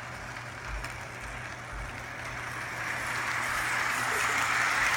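Lionel O-gauge New York Central freight train running on its track: a steady whirring rumble of motor and wheels over a low hum, growing louder over the last two seconds as the train comes closer.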